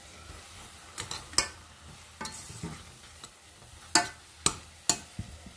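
A spoon stirring and mashing fava beans for ful medames in a stainless steel pot, with several sharp knocks and scrapes of the spoon against the pot, the loudest about four seconds in, over a faint sizzle from the pan.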